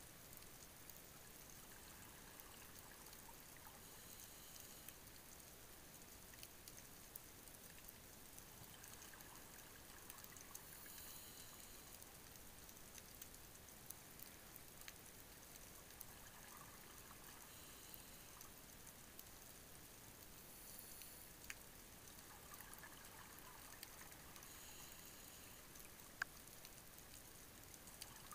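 Near silence underwater: a faint steady hiss with scattered sharp clicks and soft hissy swells now and then.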